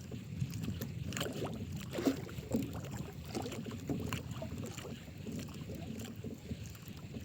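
Water slapping and splashing irregularly against the hull of a small fishing boat drifting in a rising wind, over a low wind rumble on the microphone.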